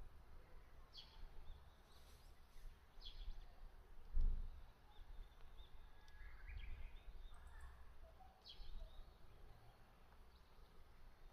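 Wild birds calling: a short, high call that falls in pitch repeats every two to three seconds, with softer chirps from another bird near the middle. A brief low rumble comes about four seconds in.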